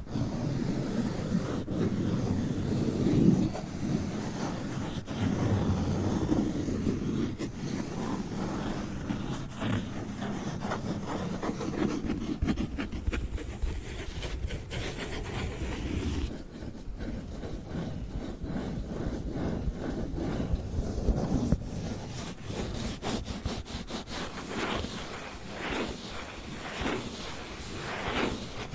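Paper bag being crinkled and rubbed close to the microphone: continuous rustling and scraping that breaks into a run of short swishes, roughly one a second, in the last few seconds.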